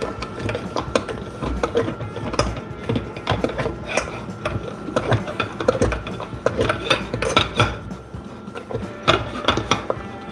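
Hand-washing dishes in a stainless steel sink: an irregular run of clinks, knocks and scrubbing as dishware and utensils are handled and scrubbed in the basin.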